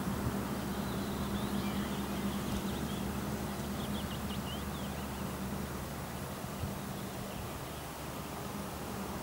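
Distant push-pull electric train on approach, pushed by an EU47 electric locomotive: a steady low hum and rumble. Small birds chirp briefly about a second in and again around four seconds.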